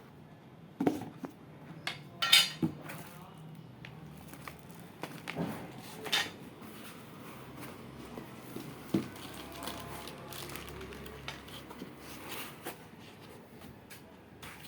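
Scattered knocks, clicks and clinks of hard items being handled and set down while an inverter is unboxed. The loudest knocks fall about two and a half seconds in and again at about nine seconds.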